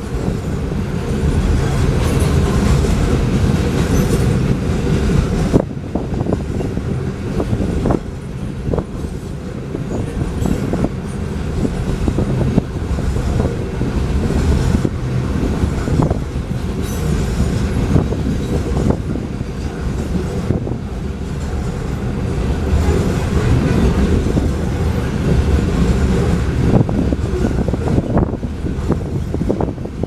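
Loaded coal train's cars rolling past, with a steady low rumble of steel wheels on rail and scattered sharp clacks.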